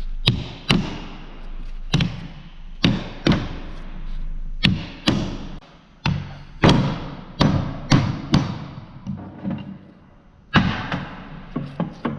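Rawhide mallet striking a differential carrier to drive it into a Salisbury rear differential housing against carrier-bearing preload: a dozen or more blows at uneven spacing, often in pairs, each with a short ringing decay, with lighter taps near the end.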